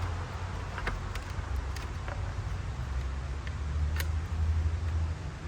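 A vehicle engine idling with a steady low rumble, with a few faint light clicks scattered over it.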